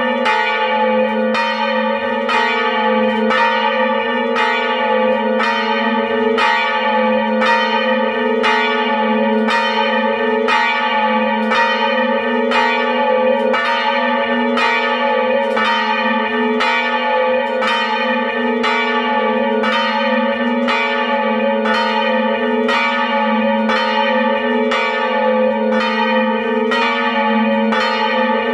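Two swinging bronze church bells of about 450 kg and 380 kg pealing together, heard from inside the belfry: even strikes about three every two seconds, each tone ringing on into the next.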